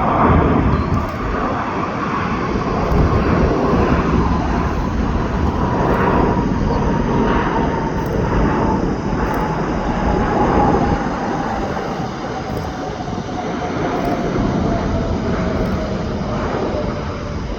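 Jet airliner passing by with a loud, steady engine rumble; its turbine whine falls slowly in pitch as it goes past.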